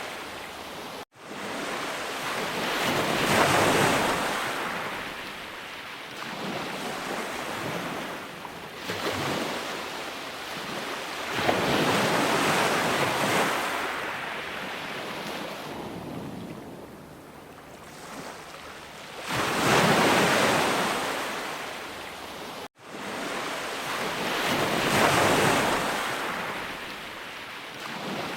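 Ocean surf: waves breaking and washing in, swelling and ebbing four times as each wave comes in. The sound cuts out completely for a split second twice, about a second in and again near the three-quarter mark.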